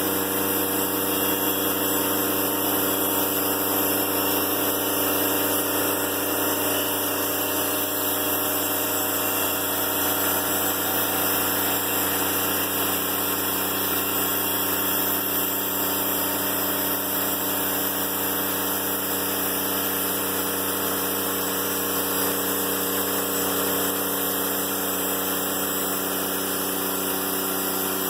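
Diesel engine of a Timberking 1400 band sawmill running steadily at an even speed.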